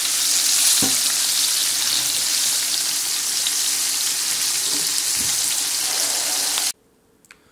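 Batter-coated pheasant pieces frying in hot oil in a shallow pan, a steady sizzle that cuts off suddenly near the end.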